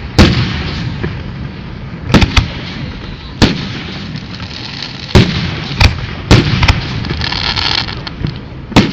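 Fireworks display: about nine sharp bangs of shells bursting at uneven intervals, with a rumbling echo hanging between them and a brief hissing crackle about seven seconds in.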